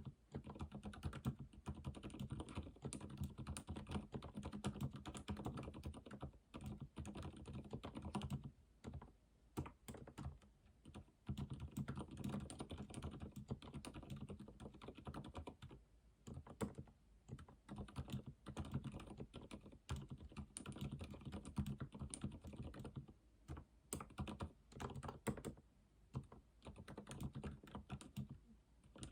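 Typing on a computer keyboard: rapid key clicks in runs, broken by short pauses.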